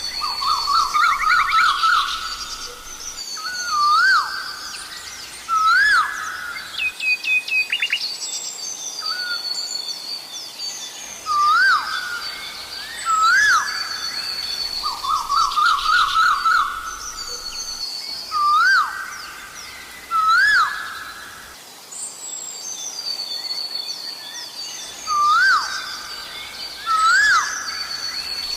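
Asian koel calling: loud rising whistled notes repeated every one to two seconds, alternating with fast runs of shorter notes at about the same pitch. Other birds sing higher and quieter behind it.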